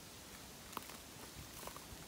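Faint, steady rustling of wind through a bamboo grove, with a few light clicks and short squeaks scattered through it.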